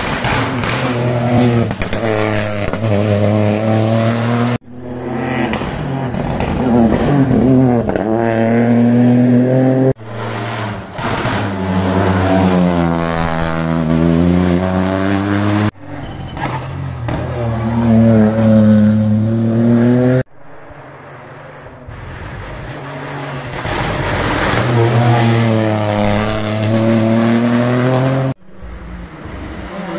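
Rally cars' engines revving hard through the gears as they pass, the pitch dropping and climbing again with each lift and acceleration. The sound is a series of short separate passes, each cut off abruptly after about five seconds.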